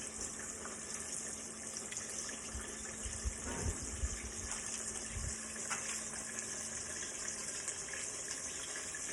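Breaded chicken sizzling and crackling in shallow hot soybean oil, a steady frying hiss. A few low thumps come in the middle.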